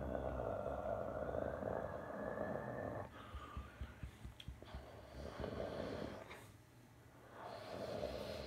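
Airbus A330's jet engines passing low overhead on final approach with the landing gear down: a steady engine rumble with a faint whine rising slightly over the first few seconds. The rumble dips about three seconds in and again around seven seconds, then swells near the end.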